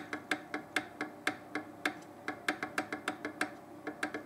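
Renkforce RF100 3D printer running, its motors making short moves: a quick, slightly irregular series of sharp ticks, about five a second, each with a brief ringing tone.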